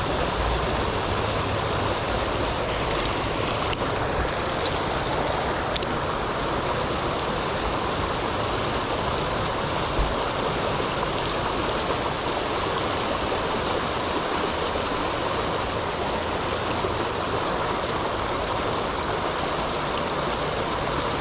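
River water rushing steadily over a riffle close to the microphone, with one brief low thump about ten seconds in.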